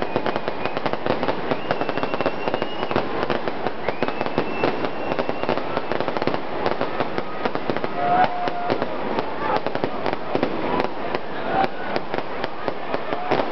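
Fireworks going off in a dense, continuous crackle of rapid pops, with a few brief high whistles.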